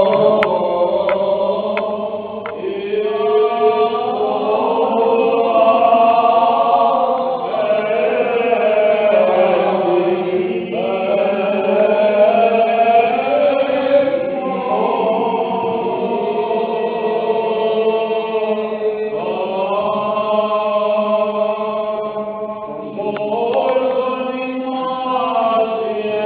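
Byzantine liturgical chant in a Greek Orthodox church: male voices sing a slow melodic line of long, bending held notes over a steady low note. A few light ticks sound in the first couple of seconds.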